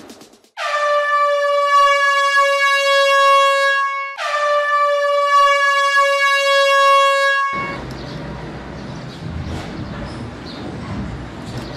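Two long air-horn blasts, an added sound effect, each about three and a half seconds with the pitch sliding down slightly at the start, the second following straight on from the first. From about seven and a half seconds in, a steady lower room noise takes over.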